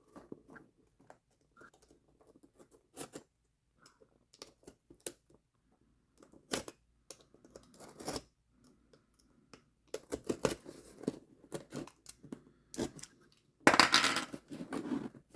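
A cardboard subscription box being opened by hand: scattered small clicks, taps and scrapes of handling, then, in the last couple of seconds, a louder stretch of tearing or cutting, most likely packing tape or a flap coming open.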